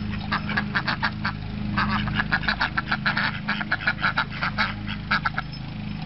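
Mallard ducks quacking in quick runs of short calls, several a second.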